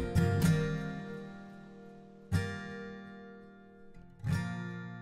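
Background music: acoustic guitar, three strummed chords about two seconds apart, each left to ring and fade.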